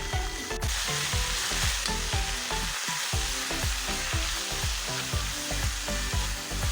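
Oil sizzling in a hot wok, with the hiss jumping louder about half a second in as washed drumstick leaves go into the pan.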